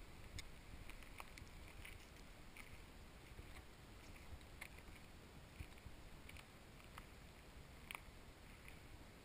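Near silence: faint background hiss with scattered faint, irregular ticks.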